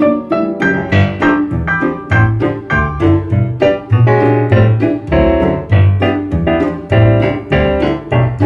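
Background piano music: a steady stream of quick notes over a low bass line.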